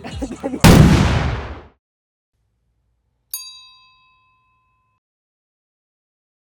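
A loud crash-like burst of noise dies away over about a second and then cuts to dead silence. About three seconds in, a single bell ding rings out and fades. These are sound effects laid in at an edit.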